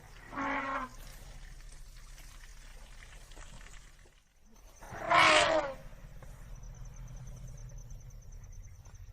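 African elephant calling twice: a short, quieter call about half a second in, then a louder pitched call about five seconds in, over a low steady rumble.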